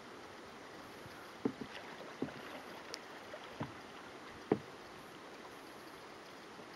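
River rapid rushing steadily, with a handful of short, sharp knocks close by, the loudest about four and a half seconds in.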